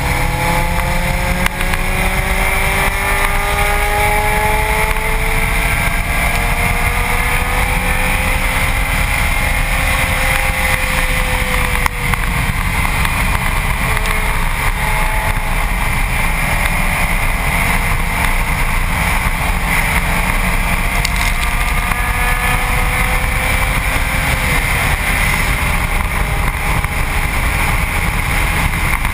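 Heavy wind buffeting and road roar at a front-bumper microphone on a Subaru WRX STi at track speed. Under it the car's turbocharged flat-four engine note climbs slowly for the first ten seconds or so, eases off briefly, then holds fairly steady.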